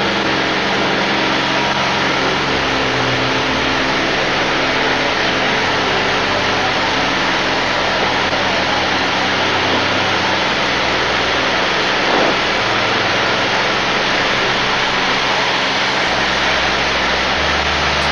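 Van's RV-10's piston engine and propeller running steadily at climb power just after takeoff, heard as a constant loud drone through the aircraft's intercom.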